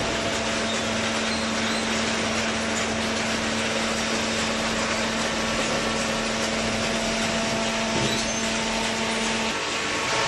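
Hydraulic cardboard baler and its feed machinery running: steady industrial machine noise with a constant hum that cuts out near the end, and a single knock shortly before.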